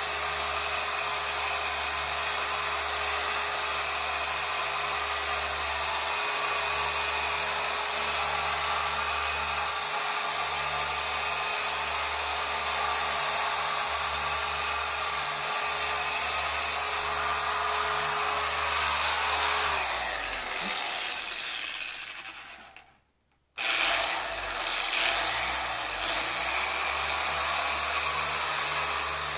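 Chicago Electric 6-inch dual action orbital polisher running steadily with a high motor whine while scrubbing pre-spray into mattress fabric. About 20 seconds in it winds down, falling in pitch, and stops. It starts again about 23 seconds in, its pitch wavering before it settles back to a steady run.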